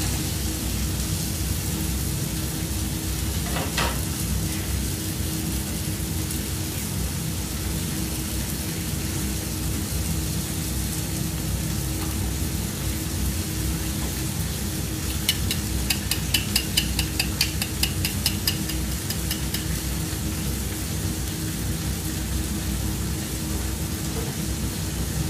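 Food frying in a pan, a steady sizzle; the food is still frozen inside. About fifteen seconds in, a quick run of sharp clicks, about five a second, lasts some four seconds.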